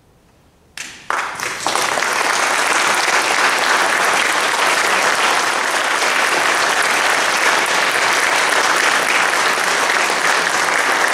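Audience applause that breaks in suddenly about a second in after a brief silence, fills out within a second and then holds steady.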